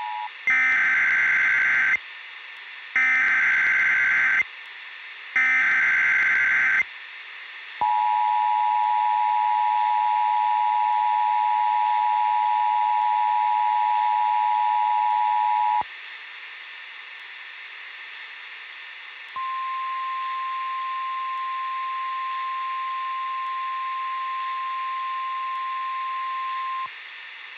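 Emergency Alert System activation. Three short buzzing bursts of the digital SAME header come about a second apart, then the two-tone attention signal holds steady for about eight seconds. After a short gap, a single higher steady tone sounds for about seven seconds, all over a steady hiss.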